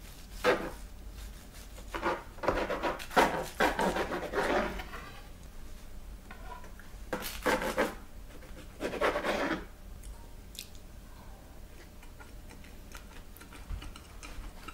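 Kitchen knife sawing through a pan-fried, buttered roll of Big Mac buns and patties on a plastic cutting board: four bouts of scratchy cutting strokes with pauses between, the longest lasting about three seconds.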